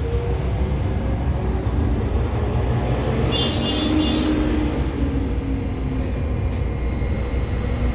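Cabin ride noise of a Škoda 30Tr SOR trolleybus on the move: a steady low rumble of tyres on the road with the electric traction drive running. A brief high-pitched tone sounds about three and a half seconds in.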